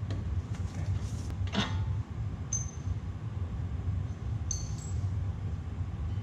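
Metal hand tools clinking, with two short high ringing clinks about two and a half and four and a half seconds in and a softer click before them, over a steady low hum.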